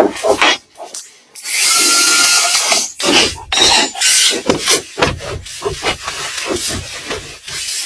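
A hand tool scraping and rasping against wood: one long stroke, then a quick run of short, repeated strokes.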